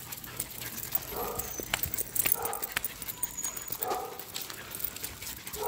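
Jack Russell terriers on leashes giving a few short whimpers, about a second apart, over light clicking of claws and leash clips.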